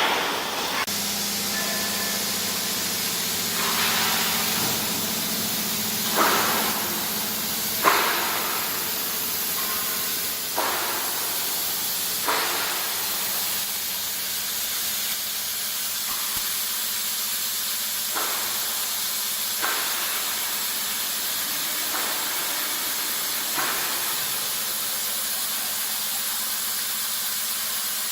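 CNC steel-beam processing machine running with a steady hiss, broken about ten times by short sharp squeals a second or two apart.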